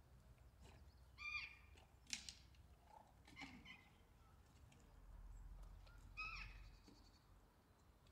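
Faint outdoor ambience with two short bird calls, one about a second in and one about six seconds in, each falling slightly in pitch. A sharp click comes about two seconds in.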